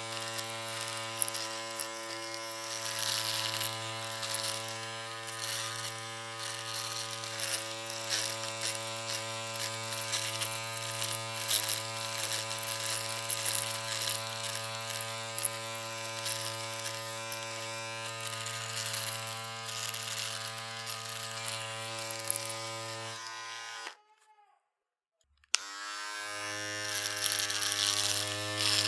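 Electric shaver running with a steady buzz. About 23 seconds in it is switched off and winds down to silence; a couple of seconds later a click, and the motor starts up again, rising to speed.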